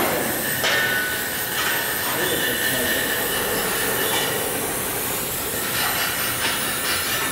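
Oxy-acetylene gas welding torch flame hissing steadily on steel pipe during brass braze-welding, with a faint high whine through the middle.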